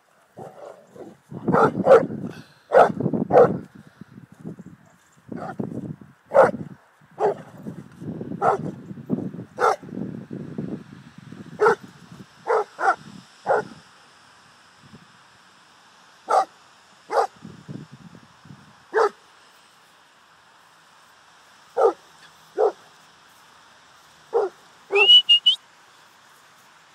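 Boerboel barking repeatedly in short single barks, close together over a rough low noise for the first ten seconds or so, then spaced one to three seconds apart. Near the end comes a short, high, rising squeal.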